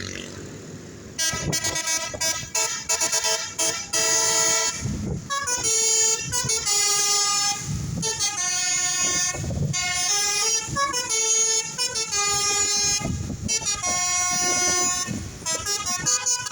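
Bus "telolet basuri" multi-tone musical air horn playing a melody, starting about a second in as a run of quick short notes, then phrases of longer held notes with brief gaps between them, stopping just before the end.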